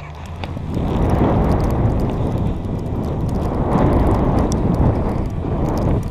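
A snowboard sliding fast over snow while being towed, with wind rushing over the microphone: a loud, rumbling rush that swells up about a second in and surges and eases a few times.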